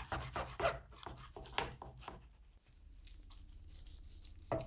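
A knife sawing through the crusty bark of a smoked brisket on a plastic cutting board: a quick run of short crunching strokes, about four or five a second, that fades to quieter cutting, with one louder knock on the board near the end.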